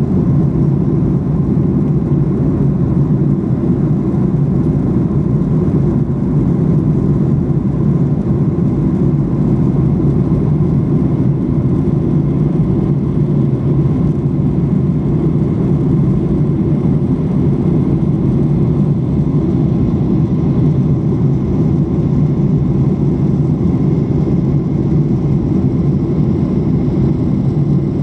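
Steady cabin noise of a Boeing 737-800 airliner in cruise, heard inside the cabin by a window: a constant low roar of the engines and airflow, with no change throughout.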